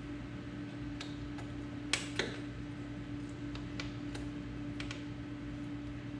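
Scattered light clicks and taps from hand tools and a drain plug being handled during a portal gear hub oil change, with two sharper clicks about two seconds in, over a steady low hum.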